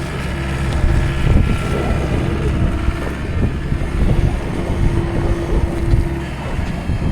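Manitou skid loader engine running as the machine works, with a steady whine that drops out a few times and irregular low knocks and rumble.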